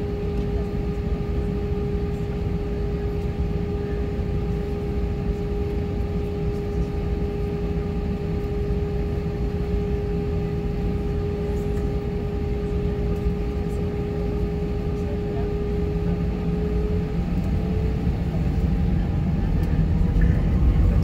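Airbus A320 jet engines heard from inside the cabin over the wing: a steady idle whine over a low rumble. Near the end the whine starts to rise and the rumble grows louder as the engines spool up for takeoff.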